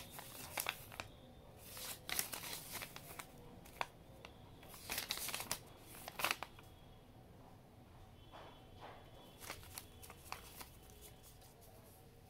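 A folded paper instruction leaflet being unfolded and handled: irregular bursts of paper rustling and crinkling, busy in the first half and thinning out after about six seconds.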